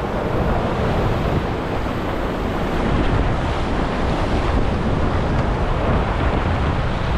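Sea waves washing and breaking against jetty rocks, with strong wind buffeting the microphone in a steady, even rush.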